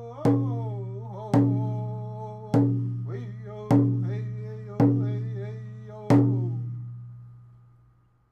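Closing music: six slow, deep struck notes that ring and die away, about one a second, the last fading out to silence.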